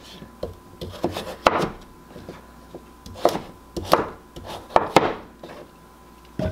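Kitchen knife chopping peeled cushaw squash into cubes on a wooden cutting board: sharp, irregular knocks of the blade hitting the board, some close together and some a second or more apart.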